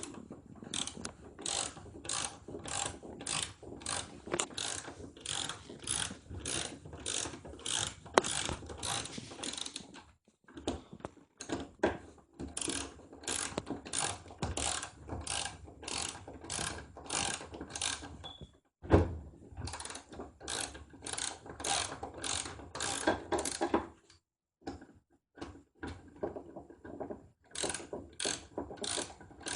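Ratchet wrench with a 3/8-inch socket clicking in quick back-and-forth strokes, about two clicks a second, as it runs down the mounting bolts of a replacement washing-machine motor. The strokes come in runs, broken by a few short pauses.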